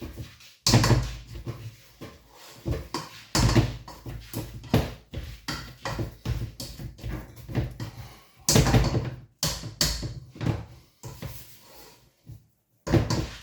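Irregular knocks and clatter of a potato masher working in a pot, mashing potatoes with butter and milk, with the loudest strikes near the start and about eight and a half seconds in.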